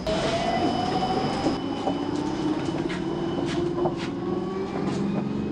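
Amsterdam tram heard from inside the car, pulling away from a stop: the electric motors give a whine that rises in pitch, over a steady running rumble, with a few sharp clicks along the way.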